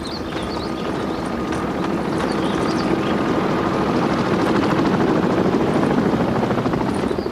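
Helicopter flying over, its rotor chopping fast and steadily, growing louder to a peak about five or six seconds in, then easing slightly.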